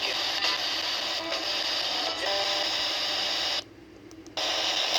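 A radio receiver hissing with static, tuned to a weak or silent station. The hiss cuts out abruptly for under a second near the end, then comes back.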